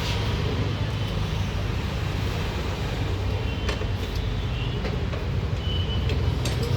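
A vehicle engine running steadily with a low rumble, with a few faint metallic clicks over it.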